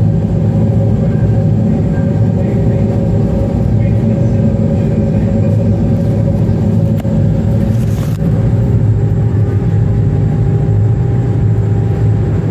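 Fast passenger ferry's engines running under way, a steady loud drone with a low hum and a fainter higher tone, heard inside the passenger cabin.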